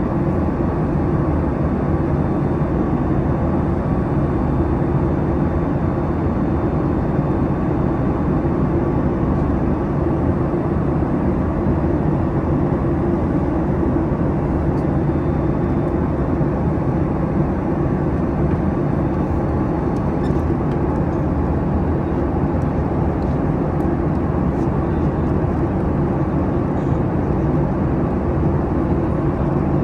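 Steady passenger-cabin noise of a Boeing 737 MAX, the hum of its CFM LEAP-1B engines and rushing air, even and unchanging throughout.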